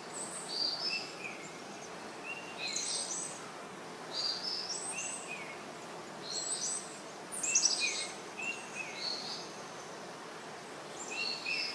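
Birdsong: a bird repeats a short phrase of high notes stepping down in pitch every couple of seconds, with a quick trill about seven and a half seconds in, over a steady faint hiss.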